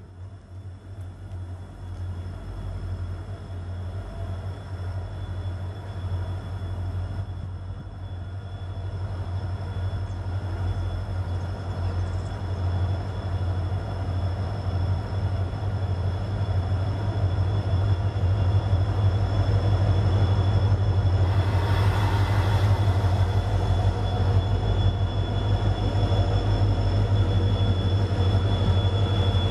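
Diesel freight locomotives working in multiple, led by an EMD WDG-4, approach and pass close by. The low engine drone grows steadily louder as they near. About three-quarters of the way through there is a brief rushing noise.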